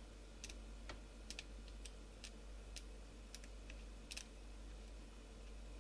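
Faint, small clicks, roughly two a second and irregular, as a star screwdriver turns two tiny screws out of a BlackBerry Curve 8520's housing. A steady low mains hum runs underneath.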